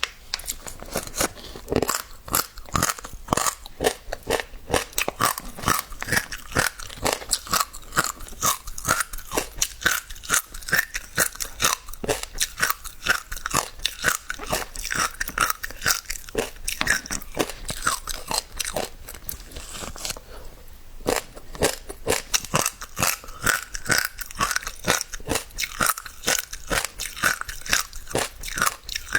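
Passion fruit seeds being crunched: a rapid, irregular run of crisp cracks and pops, with a short lull about twenty seconds in.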